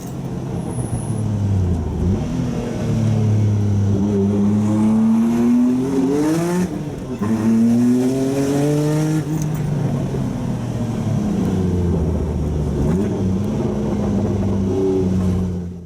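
Jaguar XJ220's twin-turbo V6 accelerating hard, heard from inside the car. Its pitch climbs through a gear, drops at an upshift about seven seconds in, climbs again, then holds a steadier note.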